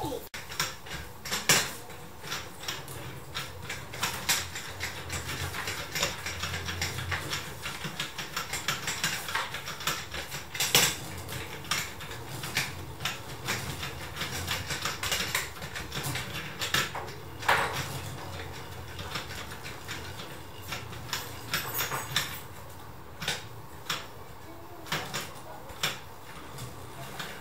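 Plastic K'NEX gears, rods and connectors clicking and rattling irregularly as the crank fan model is turned by hand, with a few louder clacks standing out.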